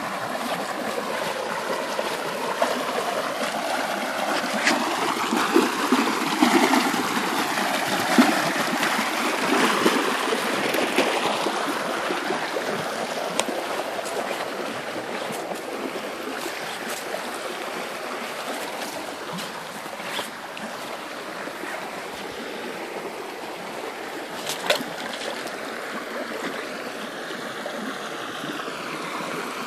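Shallow creek water running steadily over a rock bed, louder in the first half, with a few brief knocks scattered through.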